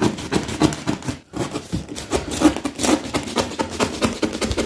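Utility knife cutting through a cardboard box covered in wrapping paper, in a quick, uneven series of scraping strokes.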